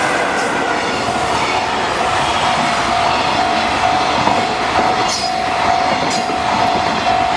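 Container freight train hauled by an EF66 electric locomotive running past a level crossing, with steady wheel-on-rail noise and a couple of sharp clacks over rail joints. The crossing's warning bell rings steadily through it as one high tone.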